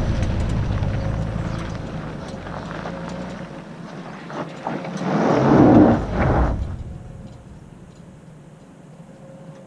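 Toyota 4Runner's 4.0-litre V6 running as the SUV crawls past over rock and pulls away up the trail, its rumble fading. About five seconds in there is a louder surge lasting a second or so, then the sound drops to a faint steady hum.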